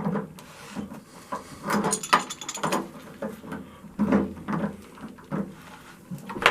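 Irregular clicks, knocks and scrapes of a water heater drain valve being threaded back into the tank and tightened.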